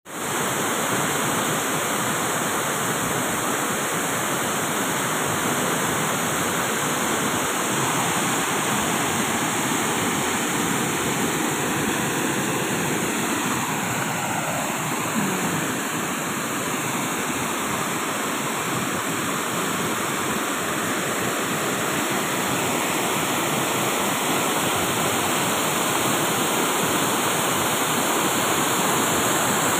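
Water spilling over the full length of a low concrete river weir into churning white water below: a steady rushing.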